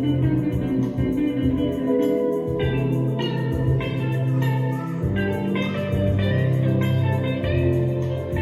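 Instrumental music: quick plucked guitar-like notes over a steady bass line, with light percussion.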